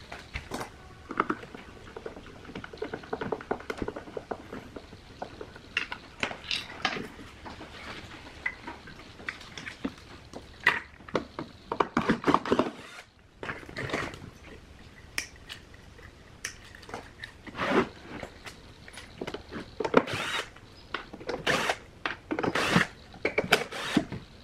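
Cordless drill run in short bursts, backing out the screws that hold a speaker's drivers in a wooden cabinet. Between the bursts come clicks and knocks as the screws, the metal driver frames and the cabinet are handled.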